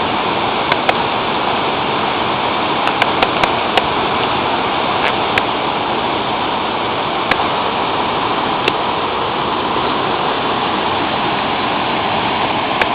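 Waterfalls rushing: a loud, steady noise of falling water, with a few sharp clicks scattered through it.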